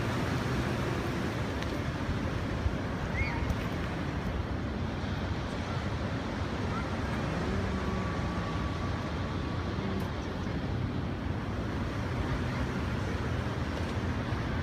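Swollen, flood-high river water rushing steadily through whitewater rapids.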